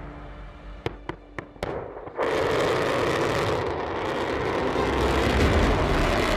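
Ballistic missile launch: a few sharp cracks, then a sudden loud rocket-motor roar sets in about two seconds in and keeps going as the missile lifts off.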